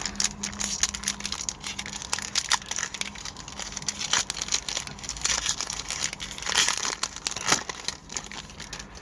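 A trading card pack's wrapper being torn open and crinkled by hand, with irregular crackling throughout.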